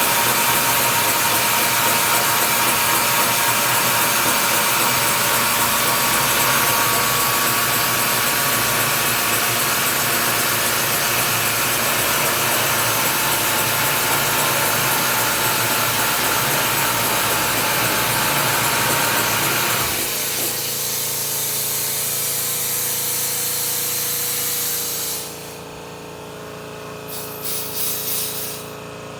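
Hofer case clamp's pneumatic system hissing steadily with compressed air as the clamp opens, which the seller takes for an air leak. The hiss cuts off about twenty seconds in, leaving a lower machine hum that stops a few seconds later, followed by a few faint brief sounds.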